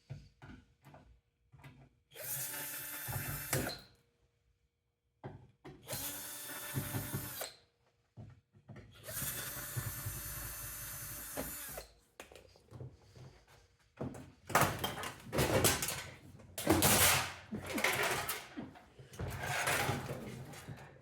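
Power drill running in three short bursts of one to three seconds each, with a steady motor whine, as it works screws out of a microwave oven's casing. In the last several seconds comes irregular, louder clattering and knocking of parts being handled.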